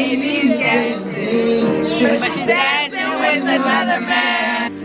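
Several women singing a pop ballad together close to the microphone, over music.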